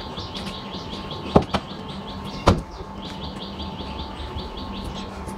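A small bird chirping in a fast, even series of short high notes, about seven a second, breaking off briefly about two and a half seconds in and stopping near the end. Sharp knocks, the loudest sounds, come about one and a half and two and a half seconds in, over a steady low hum.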